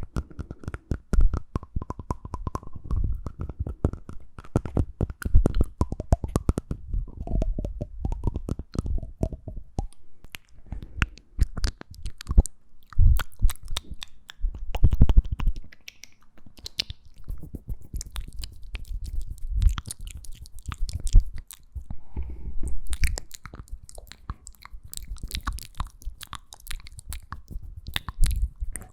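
Close-miked ASMR mouth sounds: a dense, irregular stream of wet tongue and lip clicks and smacks.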